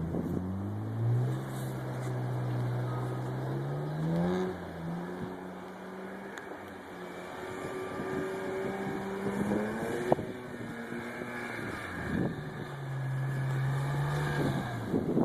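Car engine running and revving, its note climbing in steps and holding, fading out about halfway through and coming back twice toward the end.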